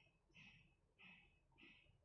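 Very faint, near-silent scraping of a kitchen knife scoring the scaled skin of a whole fish: about four short strokes, one roughly every half second.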